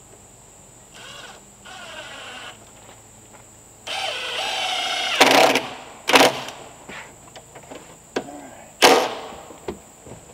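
A power drill runs in two short spells and then one longer, louder one, driving fasteners into wall sheathing boards. Three loud knocks on wood follow, the last about nine seconds in.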